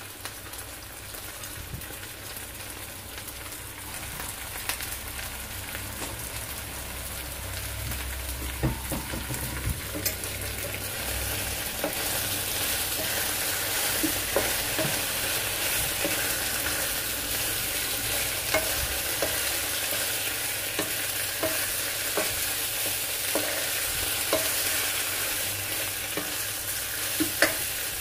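Beef and sliced vegetables sizzling in a hot oiled non-stick wok while a wooden spatula stirs them, with scattered scrapes and taps of the spatula on the pan. The sizzle grows louder over the first ten seconds or so as the pan heats back up, then holds steady.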